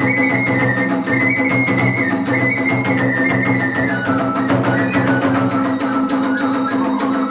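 Iwami kagura hayashi playing: a bamboo flute melody over continuous drumming and hand cymbals, the flute line dropping lower about four seconds in.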